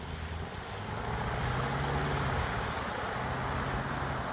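A 4x4's engine running steadily as it drives through deep floodwater, under a continuous wash of water pushed aside by the vehicle.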